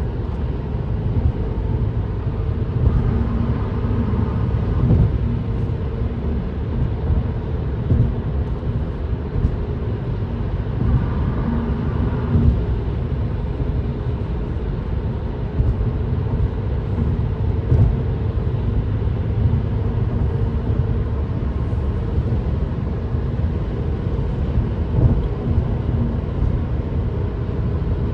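Steady low drone of an Acura TL cruising on a highway in the rain, heard from inside the cabin: engine hum and wet road noise under the tyres.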